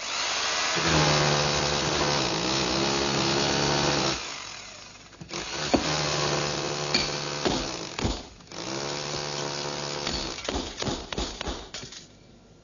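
Power drill running and boring into stone paving in three long runs, its motor pitch wavering, then a few short stop-start bursts before it cuts off.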